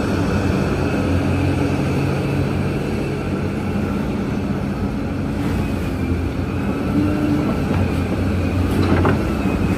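Large Liebherr mining excavator's diesel engine running steadily, with a short rising whine about nine seconds in.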